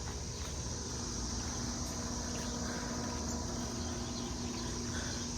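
Residential air-conditioner condensing units running: a steady hum with fan noise, under the constant high chirring of insects.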